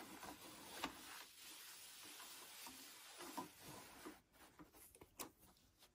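Faint rubbing of an acrylic quilting template and gloved hands sliding over quilted fabric, with a few light clicks and taps.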